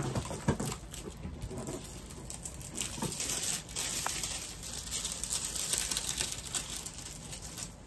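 Rustling and crinkling as a rolled diamond painting canvas and its plastic cover film are handled and loosened, with a sharp knock right at the start and scattered small clicks.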